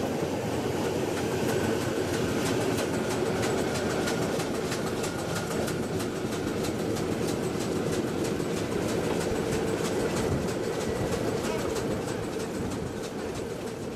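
Two metre-gauge steam-hauled trains of vintage carriages running side by side: a steady rumble of wheels on track with rapid, regular clicking, growing quieter near the end.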